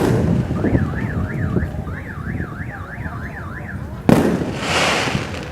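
A firework shell bursts with a sharp bang about four seconds in, followed by about a second of crackling. Before it, a warbling electronic tone sweeps up and down about four times a second, a car alarm set off in the background.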